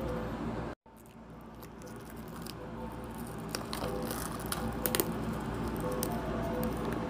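Clear plastic shrink wrap crinkling and crackling in sharp little clicks as fingers pick at it and peel it off a boxed package. A steady low hum runs underneath, and the sound cuts out briefly just before a second in.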